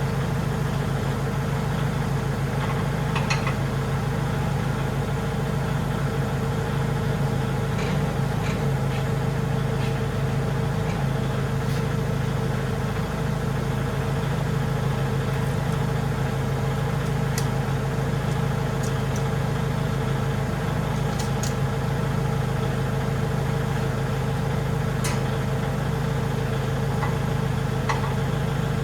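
Tractor engine running steadily at a constant speed, with a few light clinks now and then.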